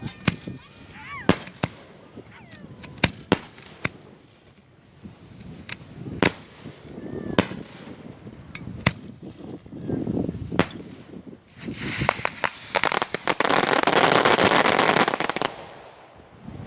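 Fireworks going off: single sharp bangs at irregular intervals, then a dense barrage of rapid crackling reports lasting about four seconds, the loudest part, which dies away near the end.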